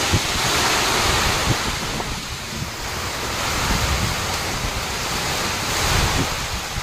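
Heavy rain pouring down steadily on a sheet-metal shed roof and a flooded yard, with wind buffeting the microphone in a few short low thumps.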